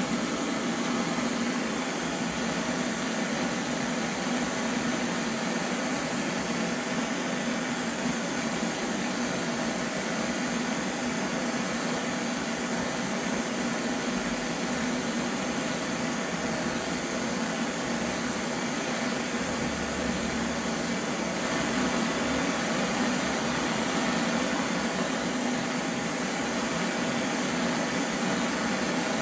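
Hand-held gas torch burning with a steady rushing hiss, its flame played on a cast-iron oil pump to heat it.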